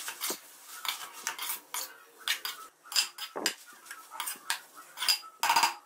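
Metal spatula clinking and scraping against a metal kadai as spaghetti, vegetables and chicken are tossed and mixed, in a string of irregular clicks and scrapes.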